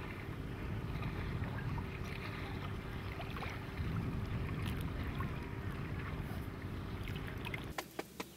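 Wind rumbling on the microphone over open water, with light lapping of water around a small float paddled by hand. About 7.7 s in, the sound cuts off abruptly to a quiet background with a few sharp clicks.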